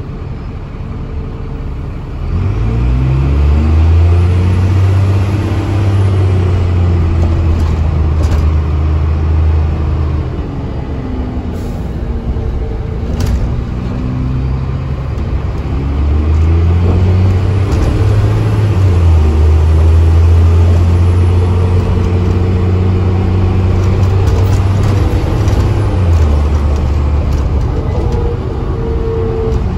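Dennis Trident double-decker bus's diesel engine heard from the upper deck. It pulls away about two seconds in and accelerates hard with a rising drone, eases off around ten seconds, then pulls hard again from about sixteen seconds, its pitch stepping down twice as the gearbox changes up. A few rattling clicks from the body come through along the way.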